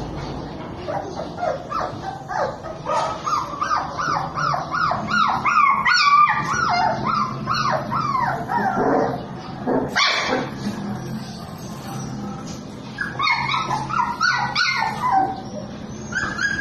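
Belgian Malinois puppies whining and yipping: many short, high, falling cries that overlap in busy runs, with a quieter stretch in the middle.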